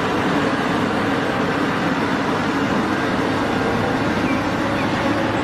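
Caterpillar 6015B hydraulic mining excavator running: a steady heavy diesel engine noise as it swings and dumps a bucket of sand into a haul truck.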